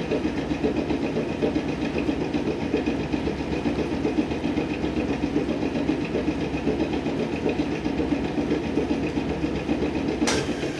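A tram's air compressor running while the car stands still: a steady, rapid clattering beat, which a rider calls an old-fashioned sound. Near the end there is a sudden hiss of air.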